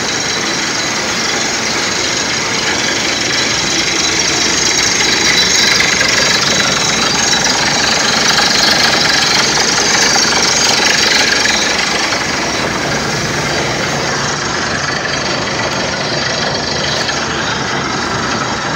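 Borewell drilling rig worked by an air compressor, with compressed air blasting white spray out of the bore: a loud, steady rushing hiss over machine noise, swelling a little in the middle.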